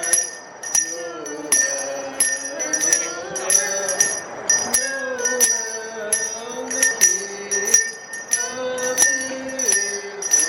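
Salvation Army handbell rung steadily, one ringing stroke about every three-quarters of a second, over a melody of held notes.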